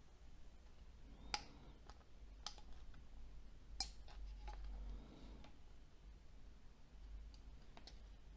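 Faint, scattered sharp clicks and taps of small plastic phone parts being handled and pressed together during reassembly, the loudest about a second and a half in and again near four seconds.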